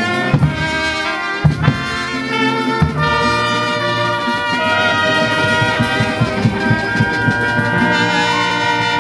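Brass band playing, trumpets and trombones over a drum beat; the drum strikes stand out in the first few seconds, after which the brass holds long sustained chords.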